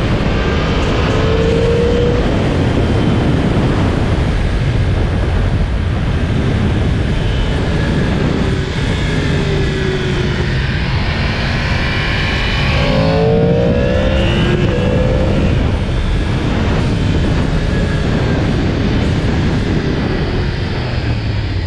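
Yamaha MT-10's crossplane-crank inline-four under way on its stock exhaust, pulling up through the revs several times, most strongly about halfway through, over a steady low rush of wind and road noise.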